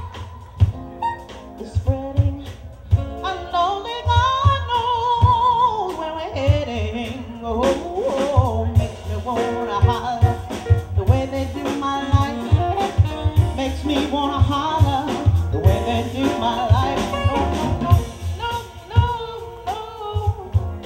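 Live jazz-funk band playing a steady groove on drums, bass, keyboards, vibraphone and saxophone, with a singer's wordless vocal runs over it.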